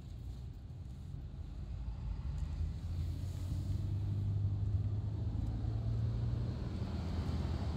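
Car engine and tyre noise heard inside the cabin of a moving car: a steady low drone that grows louder from about three seconds in as the car gathers speed.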